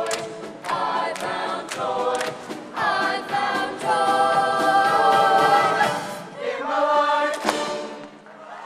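Show choir singing in full chorus with its live band, punctuated by sharp drum hits. The voices hold one long chord about four seconds in, then the song closes on a final hit shortly before the end.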